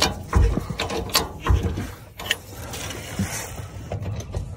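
Irregular metallic clicks and clunks with a few dull low thumps, from hands-on work with jacks and axle hardware.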